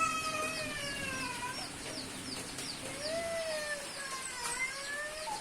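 Several long, wavering animal calls, each lasting a second or more, over a steady run of short, high chirps repeating about four or five times a second.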